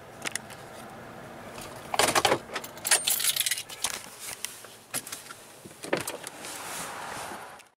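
Handling noise inside a truck cab: rustling and clicks, with bursts of metallic jangling about two and three seconds in and a few more clicks near the end.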